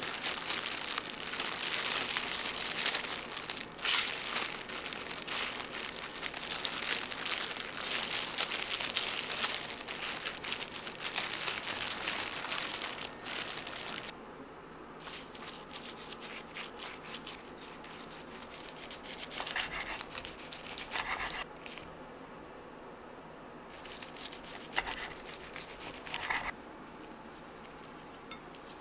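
Disposable plastic gloves crinkling and rubbing as hands roll and press a kimbap roll, a dense rustling that stops about halfway through. After that it is quieter, with a few soft taps and knocks.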